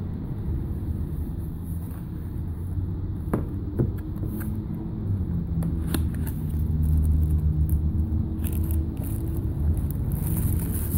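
A steady low rumble with a hum in it, and over it a few light clicks and taps as a white cardboard box is opened and its contents handled.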